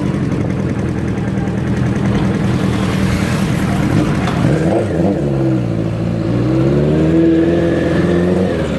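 Honda CBX 750's inline-four engine with a four-into-one exhaust running as the bike is ridden, holding a steady note at first. About halfway through the pitch dips, then climbs again over the next few seconds as the throttle is opened, easing off near the end.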